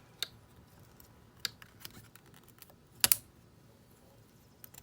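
Scattered light clicks and ticks of a piston ring being spread and slid onto an oiled two-stroke piston. The loudest is a sharp double click about three seconds in.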